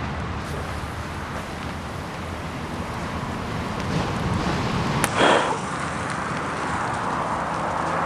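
Steady outdoor background rush around a wood-fired grill. About five seconds in there is a sharp click followed by a brief loud hiss.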